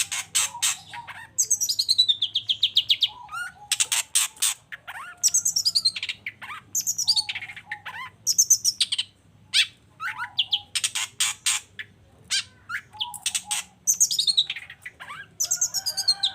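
Long-tailed shrike singing energetically: phrases of rapid harsh clicks alternate with quick high trills that slide downward, repeated every two seconds or so.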